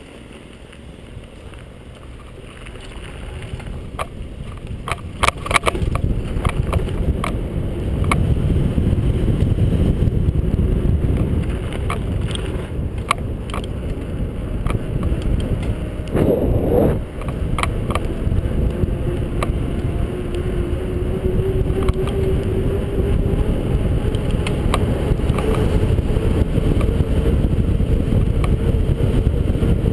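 Wind buffeting the microphone of a bicycle-mounted camera, mixed with tyre rumble. It builds over the first several seconds as the bicycle picks up speed on the road, then holds steady. Scattered clicks and rattles from bumps come through, and there is a brief louder whoosh about halfway through.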